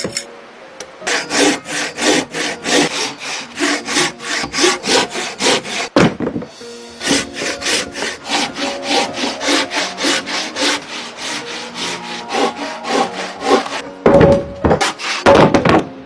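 Hand saw cutting wood in quick back-and-forth strokes, about three a second, pausing briefly about six seconds in, then ending with two longer, heavier strokes. Background music plays underneath.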